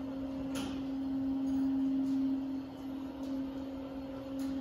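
A steady, low humming tone at one pitch, with a few light clicks and taps over it.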